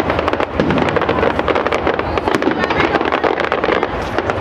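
Professional aerial fireworks display by Zambelli: shells bursting in rapid, dense succession, many sharp reports a second running into a continuous crackle.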